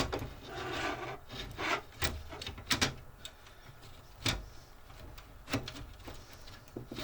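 A WD Red hard drive being handled and fitted into a computer case's drive mount: scraping and rubbing against the case, with scattered clicks and knocks, the sharpest about four seconds in.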